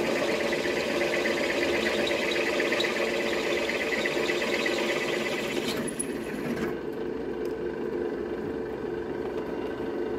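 Three-phase Metal Master M32D floor drill press drilling a 10 mm metal plate with a 16 mm twist drill: a steady motor and spindle hum with the noise of the bit cutting. About six seconds in the cutting noise stops and the spindle runs on unloaded.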